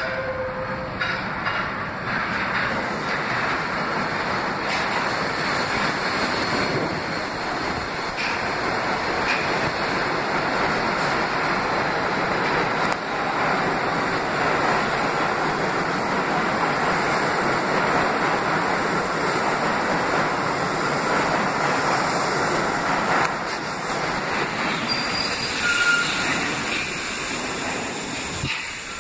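New York City Subway train of R62-family stainless-steel cars running into an underground station: a steady loud rumble and clatter of steel wheels on the rails as it slows, with brief high squeals near the end.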